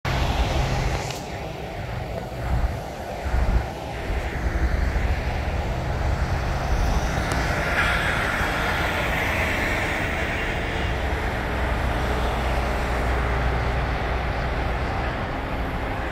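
Freeway traffic passing steadily, with a heavy dump truck going by about halfway through, which brings a swell of tyre and engine noise. Two short low bumps stand out about three seconds in.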